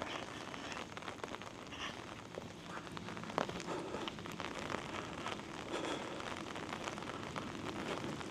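Steady monsoon rain falling, with many individual raindrops ticking sharply.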